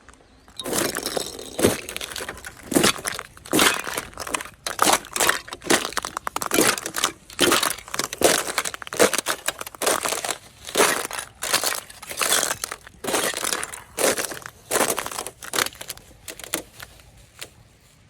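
Footsteps crunching on ice and frozen ground at a steady walking pace, each step a sharp crisp crunch.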